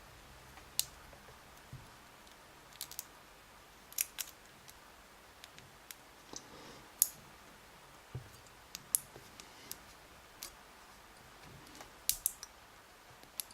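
Small, sharp metallic clicks and taps, a dozen or so at irregular intervals with the loudest about seven seconds in: a thin metal shim being worked against a pin-tumbler lock as it is pushed in alongside the plug, catching instead of sliding in.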